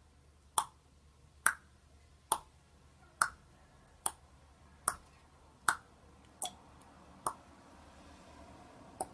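A sharp click repeating about once a second, ten times, with the later clicks fainter.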